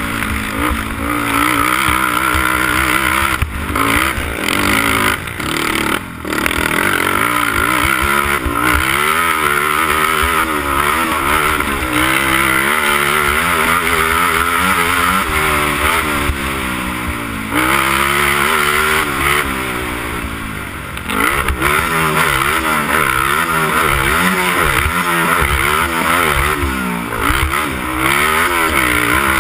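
Honda TRX300EX sport quad's single-cylinder four-stroke engine racing, revving up and down through the gears, with the throttle briefly chopped a few times before it pulls hard again.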